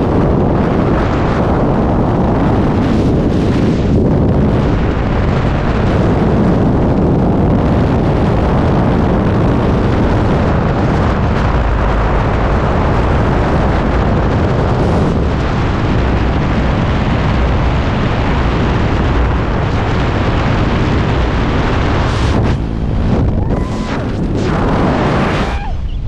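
Loud, steady rush of air buffeting the microphone, strongest in the low end, with a few brief dips and a faint wavering whistle near the end.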